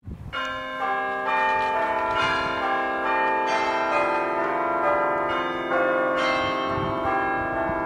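Church bells ringing: several bells struck in turn, each note ringing on and overlapping the next.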